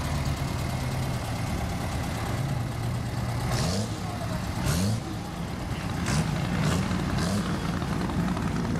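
Diesel engine of a dually rat rod idling, blipped up in revs about five times in the middle of the clip; each rev brings a rising engine note and a brief rush of air noise.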